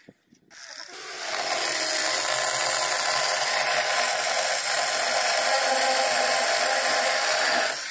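Handheld electric drill running steadily under load, drilling a hole for fixing the balcony railing. It starts about half a second in, builds up over the first second, and cuts off just before the end.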